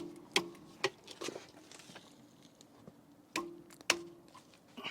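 Socket wrench and extension working at a rear brake caliper-bracket bolt: a handful of sharp metallic clicks and clinks, some leaving a brief ring, in two groups, four near the start and two past the middle.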